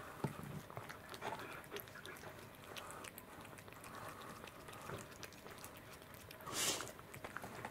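Domestic cat licking and chewing raw yellowtail fish, with many small wet clicks and smacks of its mouth. One louder, brief breathy sound comes near the end.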